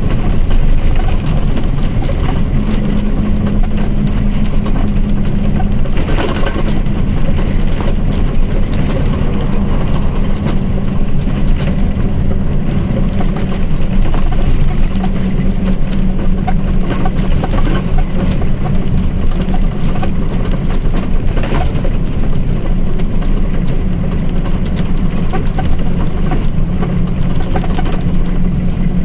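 Mercedes-Benz OF1722M bus running under way: a steady loud drivetrain drone with a hum that shifts slightly in pitch as speed changes, over constant rattling, with a couple of brief knocks.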